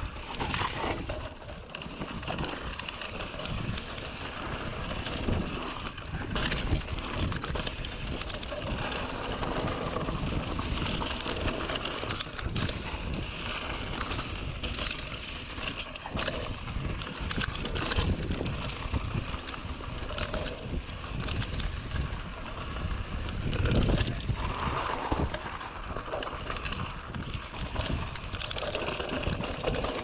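Polygon Siskiu D5 mountain bike descending a dirt trail: wind noise on the microphone and tyres running over the ground, with frequent short knocks and rattles as the bike hits bumps.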